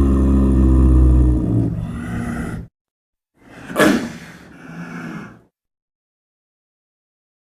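Big-cat vocal sound effects built from snow leopard and tiger recordings: a deep, rumbling growl-roar that fades out over the first two and a half seconds, then after a short gap a single sharp, loud call about four seconds in that tails off over the next second and a half.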